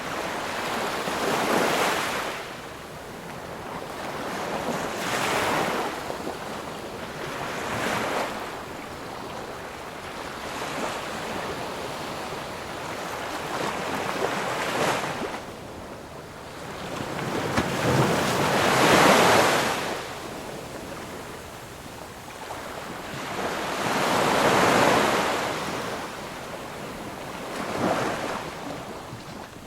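Ocean waves breaking and washing ashore, each wave a rushing swell that rises and fades, arriving every few seconds, with two larger waves in the second half.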